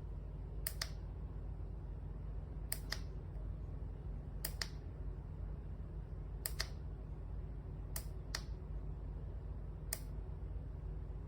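Plastic push-button on a camping lantern clicking, a press-and-release pair about every two seconds, as the light is stepped through its modes and colours. A steady low hum sits underneath.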